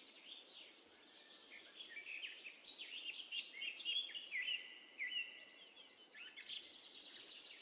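Small birds chirping and calling: a run of short, down-slurred notes one after another, with a fast, high trill coming in near the end.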